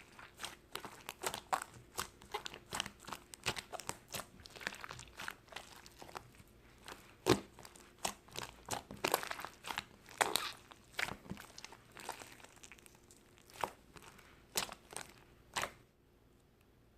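Close-up crinkling and crunching: a dense run of irregular sharp crackles that thins out and stops about a second before the end.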